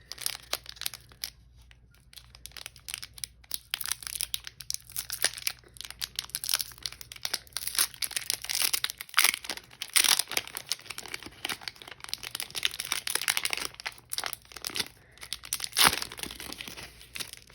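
A Pokémon booster pack's foil wrapper being crinkled and torn open: a long run of crackling, rustling tears with a sharp crack near the end.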